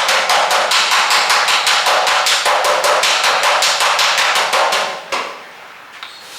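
Body hammer rapidly tapping the sheet metal of a car hood, about seven light blows a second, knocking down a high spot in the panel. The run of taps stops about five seconds in, followed by one more blow.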